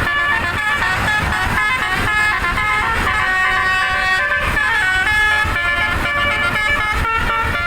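Bus 'telolet' musical air horn run by a tune module, playing a melody without a break: several horn notes sound together, held and changing pitch in steps every half second or so.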